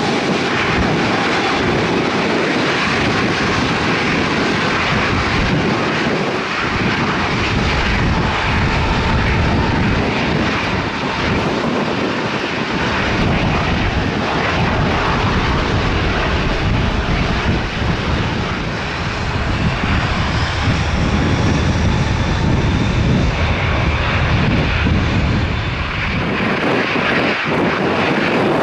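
Jet airliner engines, a loud, sustained roar with a faint high whine that glides slightly in pitch in the later part.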